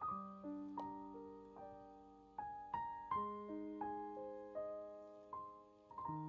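Background piano music: a slow, gentle melody of single notes, each ringing out and fading.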